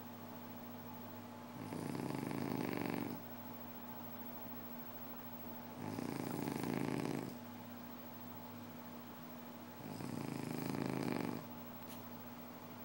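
Snoring: three snores, each about a second and a half long, coming about every four seconds.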